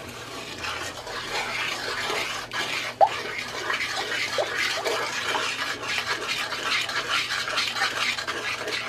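Wooden spoon stirring sugar and water in an aluminium pan, scraping steadily along the bottom where undissolved sugar has settled. A few short squeaks come through around the middle.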